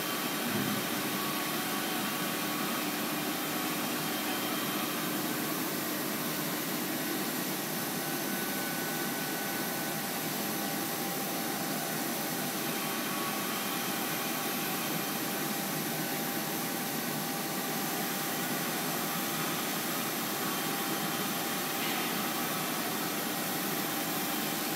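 DC TIG welding at about 170 A: a steady hiss with a few faint steady tones, from the arc and the MAHE Beta digital 240A inverter welding power source with its water cooling unit running.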